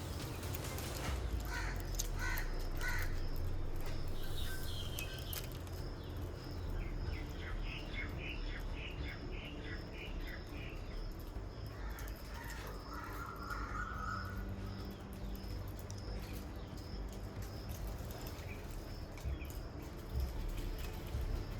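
Birds calling on and off, with a quick run of short repeated calls in the middle, over a steady low rumble.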